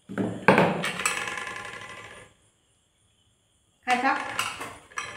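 Crockery and cutlery clinking on a table: a sharp clink that rings out and fades over about two seconds, then a second ringing clink about four seconds in.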